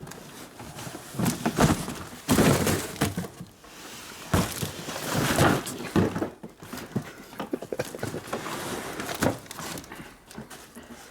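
Clatter and thunks of metal parts and boxes being moved about while rummaging through a pile of parts, with many irregular knocks.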